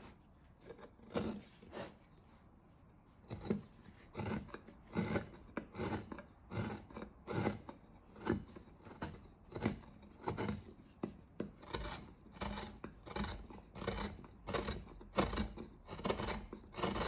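Hand carving gouge cutting into hard wild cherry wood: a run of short scraping cuts, about one or two a second, with a short pause near the start.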